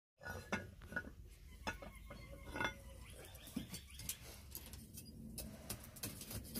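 Light metallic clinks and knocks of iron blacksmithing tools and tongs being handled at a ground forge, scattered irregularly over a low steady rumble; the sound cuts in suddenly just after the start.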